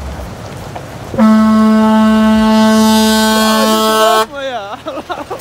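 A vehicle horn held on one steady low note for about three seconds, starting and stopping abruptly.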